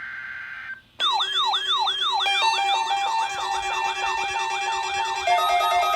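Electronic weather-radio alarms going off for the weekly test. A steady tone cuts off under a second in; after a brief gap comes a rapidly repeating falling siren sweep, about three a second, and more steady beeping alarm tones join in layers at about two and five seconds in.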